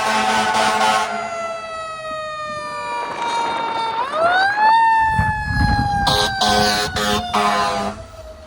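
Emergency vehicle's mechanical siren winding down in a long falling wail, spun back up about four seconds in and coasting down again. Air horn blasts sound at the start and again in a few short bursts near the end.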